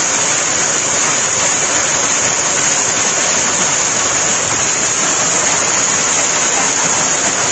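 Torrential thunderstorm rain pouring down, a loud steady rush that does not let up.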